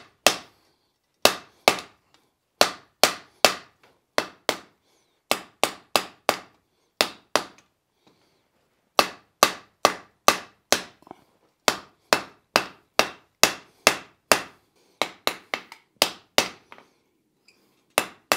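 Blacksmith's hand hammer striking a hot steel bar on the anvil face. Sharp ringing blows come in quick runs of two to four, about two a second, with short pauses between runs.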